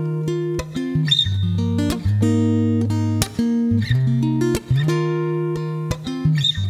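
Taylor T5z Custom Koa electric-acoustic guitar played through a Line 6 Helix acoustic sound, recorded direct. Chords are played with low bass notes, changing every second or so in a pattern that repeats about every three seconds.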